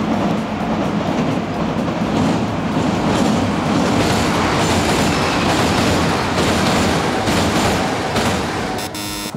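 Kintetsu electric train running past over the Yamato River railway bridge, loud, with wheels clattering over the rail joints.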